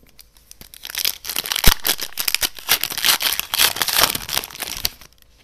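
A foil trading-card pack from Upper Deck's 2021-22 Marvel Annual set being torn open and crinkled by hand. Dense crackling starts about a second in, with one sharp snap soon after, and stops shortly before the end.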